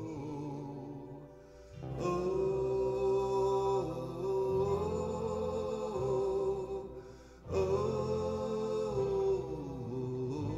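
Music with no sung lyrics: long held notes over a low bass in slow phrases, briefly dipping and starting a new phrase about two seconds in and again about seven and a half seconds in.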